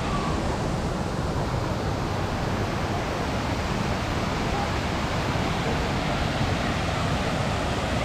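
Steady rush of water from a waterfall and rocky stream, an even noise with no breaks.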